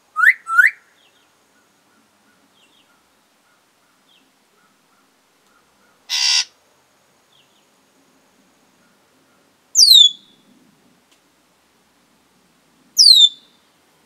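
African grey parrot whistling: two quick rising whistles at the start, a short raspy burst around the middle, then two sharp whistles that drop steeply in pitch, a few seconds apart near the end.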